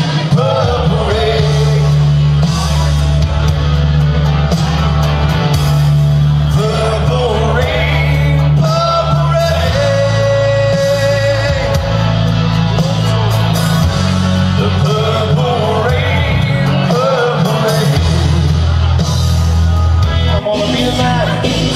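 Music: a sung melody over held bass notes that change every couple of seconds.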